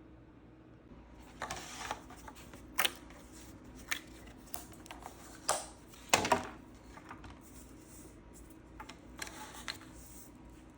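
Small hard objects being handled by hand: scattered sharp clicks and knocks, the loudest a double knock about six seconds in, with two short scraping rustles.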